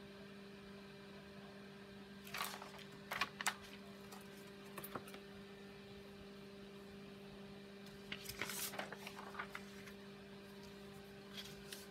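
Sheets of cardstock and paper rustling and tapping as they are lifted and shifted on a cutting mat, in two short bursts, over a faint steady electrical hum.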